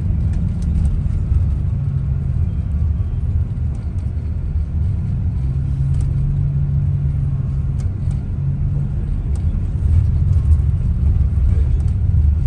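Bus driving, heard from inside the passenger cabin: a steady low engine and road rumble, with a few faint light ticks.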